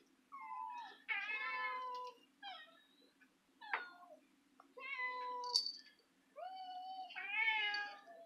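Several house cats meowing over and over, begging for food: about half a dozen calls, some overlapping, with a long rising-and-falling meow near the end.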